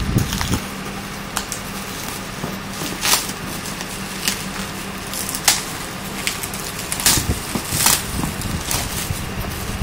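Loose clear plastic wrap crinkling and crackling as it is pulled and peeled off a cardboard box, with a few louder, sharper crackles at irregular moments.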